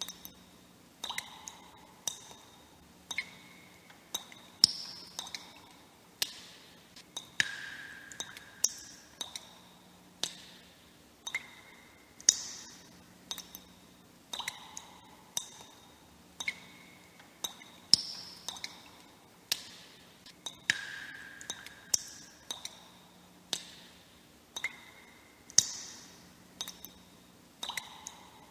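Water droplets dripping one at a time, each a sharp plink with a short ringing tone at a different pitch, about one or two drops a second at uneven spacing.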